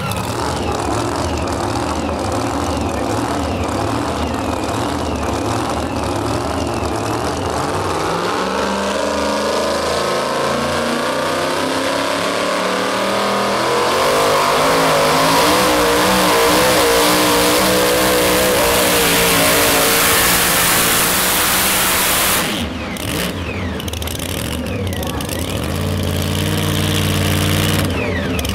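Modified two-wheel-drive pulling truck engines: one idling at first, then a supercharged engine revving up and running at full throttle under load through a pull, dropping off suddenly about two-thirds of the way through. Another engine idles near the end.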